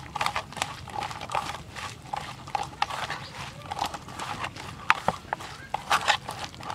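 A hand squishing a raw egg into chopped onion, chilli and herbs in a stainless steel bowl: irregular wet squelches and clicks.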